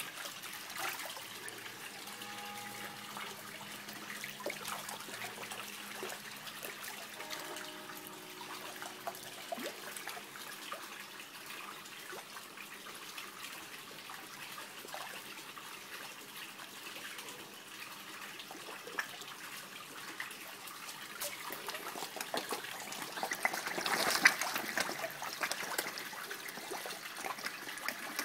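Koi splashing and gulping at the surface of a pond while feeding, over a steady trickle of water. The splashing is heaviest and loudest about four seconds before the end.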